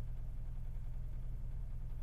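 Car engine idling: a steady low rumble with a fine, even pulsing. The owner is chasing an unexplained knock and vibration at idle, felt as a shaking mirror and a vibrating steering wheel.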